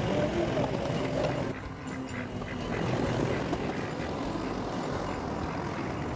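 Skid steer engine running steadily, with a wavering whine in the first second or so.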